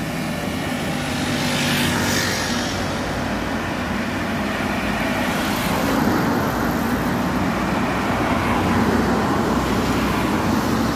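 Toy remote-control car running across a floor, with a steady, unbroken mechanical noise.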